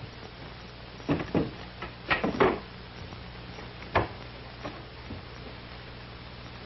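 A door being handled: a few knocks and rattles about a second in and around two seconds, then one sharp click about four seconds in. Under them runs the steady mains hum and hiss of a 1940s film soundtrack.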